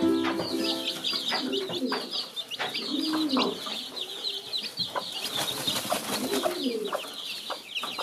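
Austrian bantam chicks peeping constantly in quick high chirps, with the mother hen clucking low now and then as she broods them.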